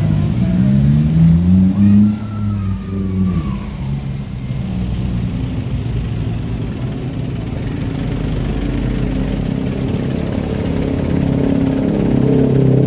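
Motor vehicle engines at close range. A scooter-type engine rises in pitch as it accelerates away over the first few seconds, then engines run steadily, growing a little louder near the end.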